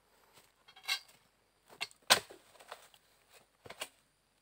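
A handful of sharp knocks and crackles as a worker steps through dry palm litter and handles a long harvesting pole, the loudest about two seconds in.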